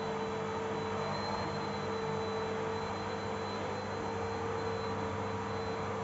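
Bosch BGS21X320 bagless canister vacuum cleaner running steadily, its bare hose end drawn over a plush teddy bear: rushing air with a steady mid-pitched whine.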